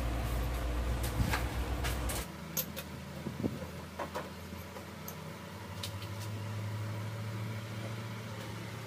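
Manual lathe running while a wire brush scrubs the spinning turned metal part, with a scratchy rasp over the motor's low hum; the lathe shuts off suddenly about two seconds in. After that come a few light metal clinks as the stopped workpiece is handled, over a quieter steady hum.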